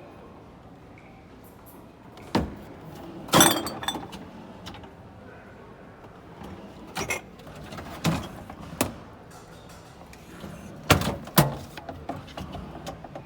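Kitchen pantry cabinet doors and pull-out racks being opened and shut: a series of about seven sharp knocks and clatters. The loudest is a short rattling cluster about three and a half seconds in.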